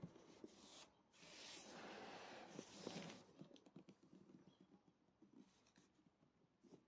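Hands scraping and rubbing over a cardboard box for about two seconds, followed by faint light taps and ticks.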